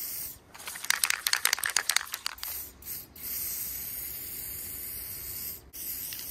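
Aerosol spray paint can shaken, its mixing ball rattling quickly for about two seconds. The can then sprays paint in a steady hiss for a couple of seconds, and sprays again briefly near the end.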